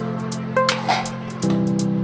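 Background music: plucked guitar-like notes over a steady low drone and a regular beat.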